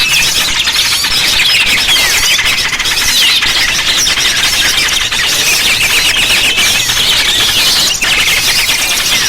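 A dense, loud chorus of many small birds chirping and twittering at once, their fast overlapping calls never pausing: a bird-lure recording of noisy small birds.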